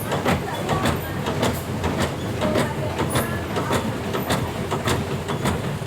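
Coffee packaging machine running, with a steady mechanical clatter of about three to four clacks a second over a continuous machine rumble.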